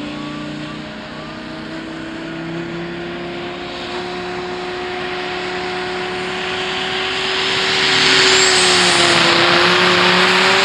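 Modified pulling tractor engine running flat out during a pull, its note held high and steady and creeping slowly upward. About eight seconds in it grows much louder and harsher, with a high whine rising briefly on top.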